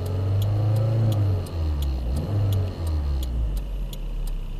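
2.2-litre four-cylinder engine of a 1997 Toyota Celica being revved, its pitch rising and falling as the throttle is opened and let back off. An even, light ticking, about three a second, runs along under it.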